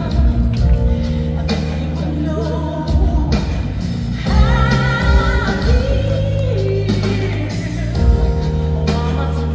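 Pop-rock song with a sung vocal line over bass, guitar and drums.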